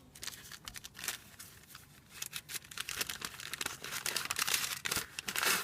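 Rustling and crinkling of old papers handled by hand, sparse at first and thickening into a dense, continuous crinkle from about two seconds in, loudest near the end.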